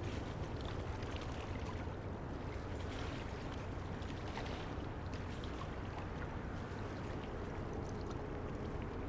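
A large container ship passing: a steady low engine hum under an even wash of wind and water noise.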